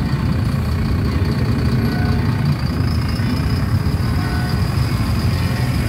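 Mercedes-Benz fire engine's diesel engine running at low revs as the truck drives slowly past close by: a steady, deep rumble.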